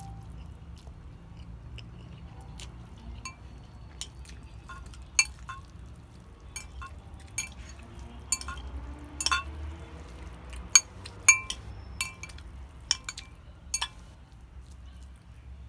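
Cutlery clinking and tapping against dishware, about a dozen sharp clinks, some with a brief ring, coming more often in the second half. A steady low hum runs underneath.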